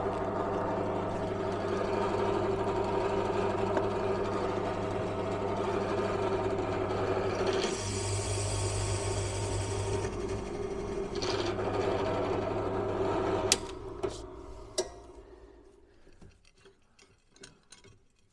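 Bench pillar drill motor running steadily, with a hole saw cutting through a metal plate and giving a hissing grind for a few seconds partway through. The drill is switched off with a click about thirteen seconds in and winds down, followed by a few light clicks as the plate is handled.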